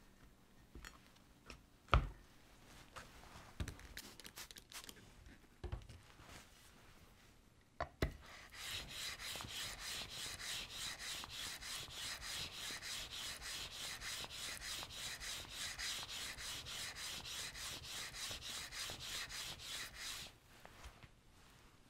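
Smoothing plane's sole rubbed back and forth on a diamond lapping plate in quick, even strokes, lapping the sole flat. A few knocks come first as the plane is set down on the plate, and the rubbing starts about eight seconds in and stops near the end.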